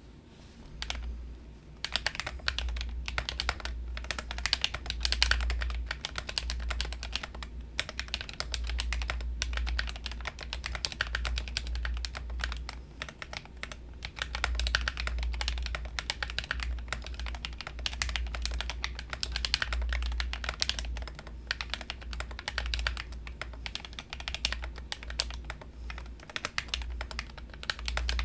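Typing on a Minivan 40% mechanical keyboard with KTT Kang White linear switches and thick double-shot PBT MT3-profile keycaps: fast, continuous key clacks that start about two seconds in. The builder finds the sound a little bit hollow.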